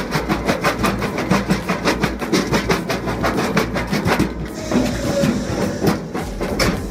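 Heavy machine clattering in a fast, even rhythm of about ten strikes a second, turning into a less regular mechanical running sound about four seconds in.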